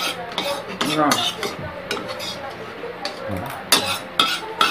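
Metal spoons clinking and scraping against ceramic bowls as people eat, with a few sharp clinks near the end.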